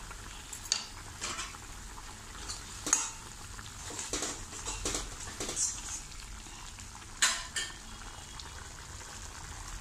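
A spoon stirring and clinking against a kadai as a thin tamarind gravy bubbles at a simmer, with several sharp clinks scattered through.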